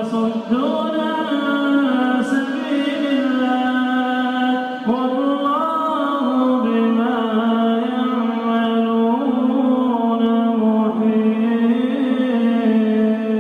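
A male Quran reciter chanting in melodic tajweed style, drawing out long held notes with ornamented turns in pitch. He takes up a new phrase about half a second in and again near five seconds.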